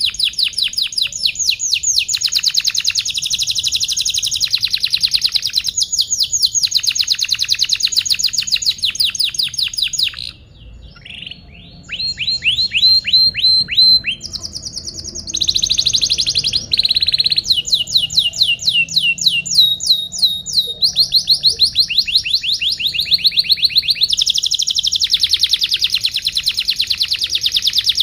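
Domestic canary singing long, rapid trills of repeated chirps, phrase after phrase, with a brief quieter break about ten seconds in.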